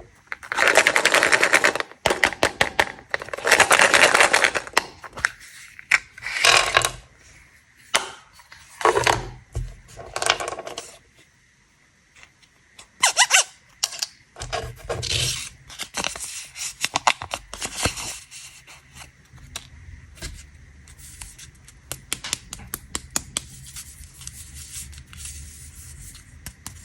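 Plastic candy wrappers crinkling and crackling as they are unwrapped, in loud bursts of rapid crackles with short pauses between, growing fainter and sparser in the second half.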